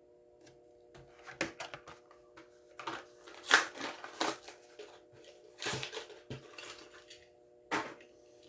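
Plastic blister packaging of a die-cast toy car crackling and tearing as it is opened by hand, in a run of irregular sharp crinkles and clicks, over a faint steady hum.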